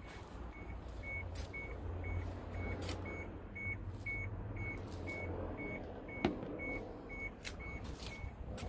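A vehicle's electronic warning buzzer beeping steadily at one high pitch, about two and a half beeps a second, over the low rumble of a running engine, with a few sharp clicks.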